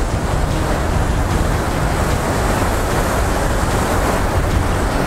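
Steady wind rumbling on the microphone, over the wash of surf breaking on the beach.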